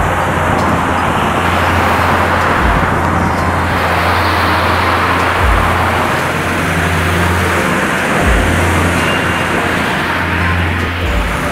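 Steady rush of wind and road noise on a bicycle-mounted microphone while riding along a busy road, with car traffic going by. A low rumble underneath dips briefly about every three seconds.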